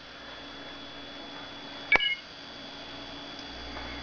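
A sharp click about two seconds in, followed at once by a short high electronic-sounding beep, over a faint steady hum and high whine.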